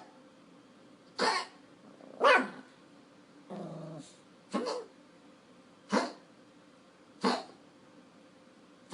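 Pomeranian reverse sneezing: a run of about six short, harsh pulls of air through the nose and throat, roughly one a second, with one longer, lower sound near the middle. The sign of a spasm of the throat and soft palate.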